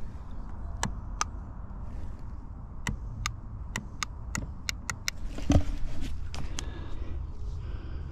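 Dodge Durango power seat clicking as it is tried with its switch, in about a dozen sharp clicks at uneven intervals, without the seat moving. A louder thump comes about five and a half seconds in.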